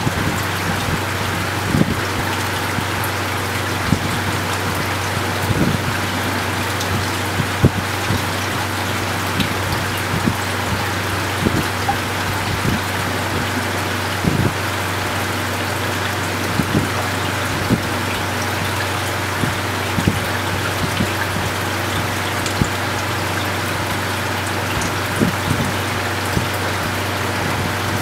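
Reef aquarium's water circulation running: a steady splashing trickle of water with a low steady hum beneath it and irregular small drips and plops every second or two.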